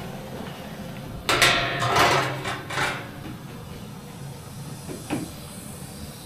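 Metal lid set onto a gas-fired steel bread oven, clattering and scraping with a metallic ring for about a second and a half, over the steady hiss of the gas burner. A single light knock comes about five seconds in.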